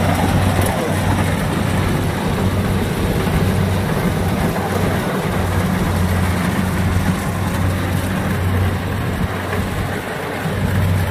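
Engines of two Kubota DC70 rice combine harvesters running together as they cut through standing rice, a steady low drone.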